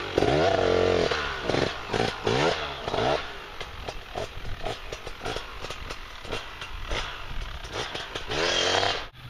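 Husaberg enduro motorcycle engine revving hard in bursts with quick throttle blips as it pulls away through snow, growing fainter as it moves off, with one more hard rev near the end before the sound cuts off abruptly.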